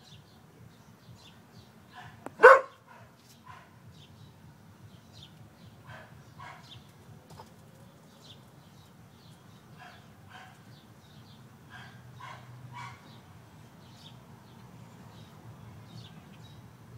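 A dog barks once loudly about two and a half seconds in. A few quieter short barks follow now and then.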